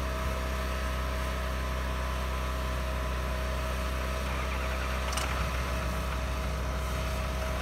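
Steady idling engine drone with a steady whine above it, from the pickup truck and the generator and air compressor running in it, which power the oxalic acid vaporizer. One short sharp click about five seconds in.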